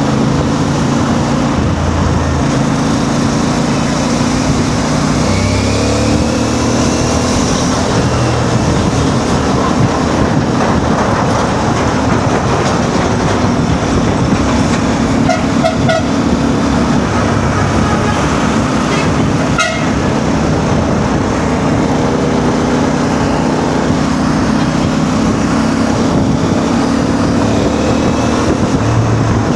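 CF Moto 450 MT's parallel-twin engine running at low speed in stop-and-go traffic, its revs rising and falling as it pulls away and slows, under steady wind and road noise. Short horn toots sound about halfway through.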